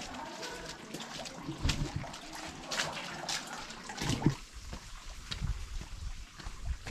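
Water trickling, with scattered clicks and knocks; a low rumble joins in about four seconds in.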